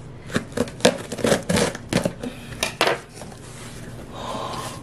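Packaging being opened and handled: a quick run of crinkling, crackling and tearing sounds that eases into a softer rustle after about three seconds.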